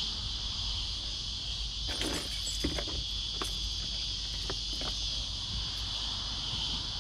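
Steady high-pitched insect chorus, with a few light knocks and rustles of fishing gear being handled in a car boot about two to five seconds in.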